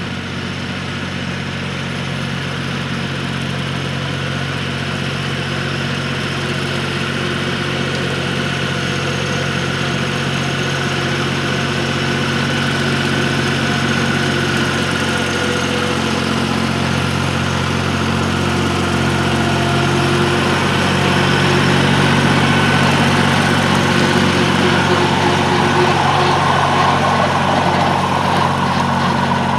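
Compact diesel tractor's engine running steadily with a rotary cutter shredding weeds behind it, growing louder as the tractor comes closer and passes by near the end.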